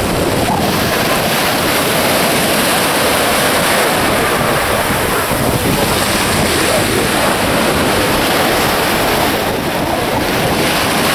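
Steady rushing of wind buffeting the microphone over choppy open water, with waves washing underneath.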